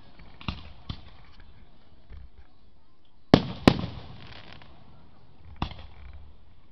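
Aerial fireworks shells bursting overhead. There are two lighter bangs in the first second, a loud pair of booms about three and a half seconds in, and another bang near the end, each trailing off briefly.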